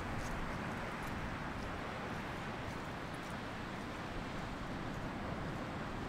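Ocean surf breaking and washing onto a beach: a steady rushing noise with no single wave standing out, a few faint small ticks above it.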